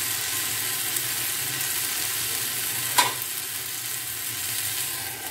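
Diced potato and pointed gourd sizzling steadily in oil in a frying pan, dry-frying with no water added. One sharp tap sounds about three seconds in.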